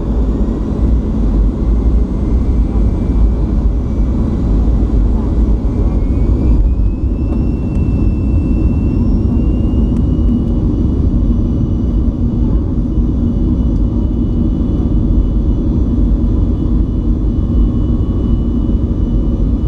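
Boeing 737-500's CFM56 jet engines heard from inside the cabin over the wing: a steady low rumble with a thin whine that rises in pitch about six seconds in and then holds, as the engines spool up to more thrust.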